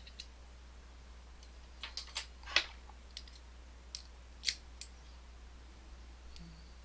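Small metallic clicks and scrapes of tools working the retaining clip off an M&C Move lock cylinder. Several sharp, separate ticks are spread over the seconds, the loudest about two and a half seconds in.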